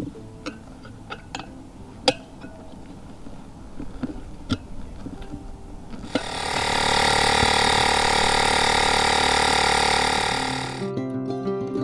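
Scattered clicks and knocks from handling a motorcycle tyre, inner tube and tools by hand, then a loud steady buzzing mechanical noise for about five seconds that cuts off, just before guitar music begins.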